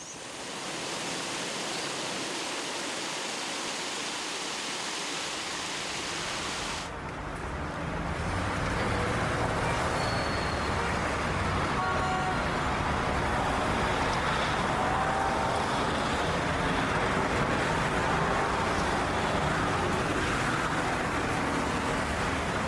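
Steady road traffic noise with faint car horns. About seven seconds in it changes, losing its hiss and growing louder and lower.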